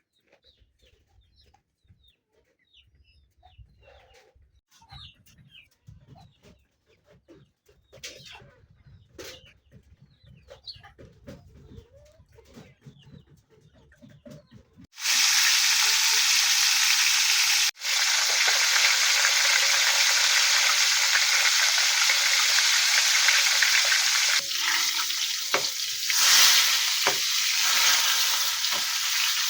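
Chickens clucking faintly, then, about halfway through, a sudden switch to food sizzling loudly in hot oil in a frying pan. The sizzling runs steadily, with a brief break a few seconds after it starts.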